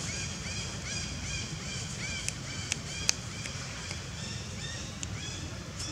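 An animal giving a steady series of short, high, arched calls, about two or three a second, with a few sharp clicks about halfway through.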